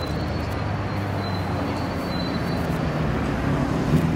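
Steady city traffic rumble from engines on a busy road, with a faint thin high whine over the first couple of seconds.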